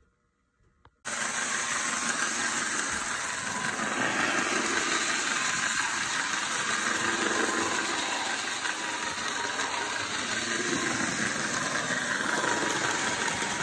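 Bachmann HO-scale Thomas tank engine model running along the track: a steady, loud whirring noise from its motor and wheels, starting abruptly about a second in.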